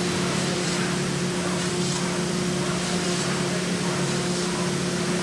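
A CNC gantry wood and foam mold router running with its 5.5 kW mechanical spindle: a steady hum with a constant whine over an even hiss.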